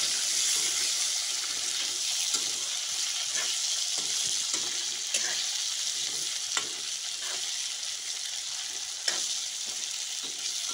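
Chicken pieces, potatoes and tomatoes sizzling in hot oil in a steel kadhai, stirred with a metal spatula that clicks and scrapes against the pan now and then.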